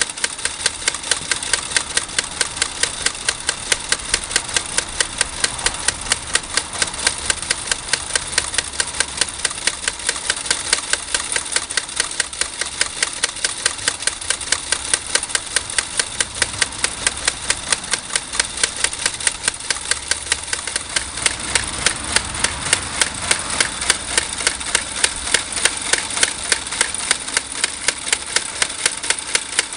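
Wilesco D20 toy steam engine running steadily: a constant steam hiss with a sharp, even exhaust beat at about three strokes a second.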